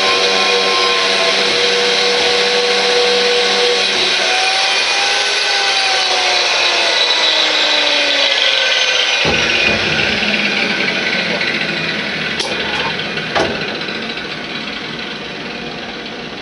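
Power tool with a wire brush running, scrubbing paint off a steel bracket. Its whine rises briefly, then slides down in pitch over several seconds. After that comes a rougher, deeper scrubbing noise that slowly fades, with two sharp clicks near the end.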